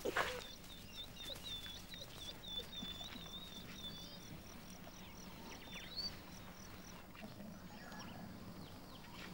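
Faint wildlife sound: a high, bird-like chirping, a quick run of short notes about four a second lasting several seconds, then a single rising whistle about six seconds in. A steady low hum runs underneath.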